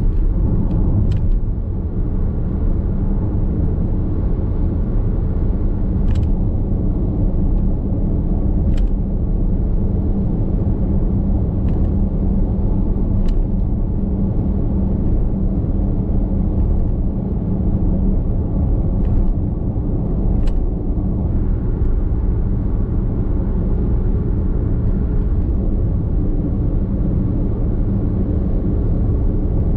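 Steady road and tyre rumble inside the cabin of a Nissan X-Trail Hybrid cruising on an expressway, with a low drone and a few faint clicks scattered through.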